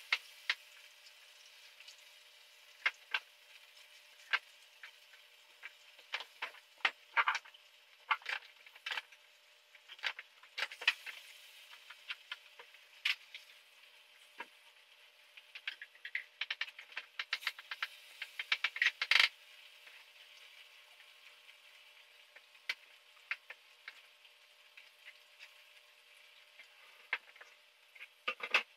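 Kitchen knife tapping on a plastic cutting board as vegetables are chopped, in irregular sharp taps with pauses between. A quick run of taps comes a little past the middle, the loudest of them near its end.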